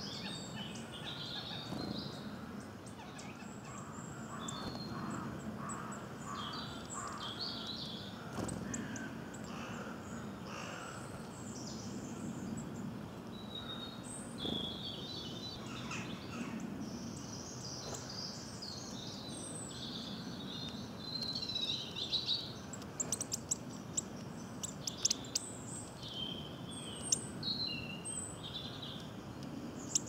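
Wild birds singing and calling in woodland: many short high chirps and song phrases from several birds, over a low steady background hum. In the second half there is a run of sharp close clicks and taps.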